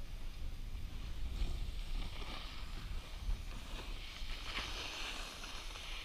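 Low wind rumble on the microphone, with two swells of hiss from board edges scraping across snow, about a second and a half in and again near five seconds.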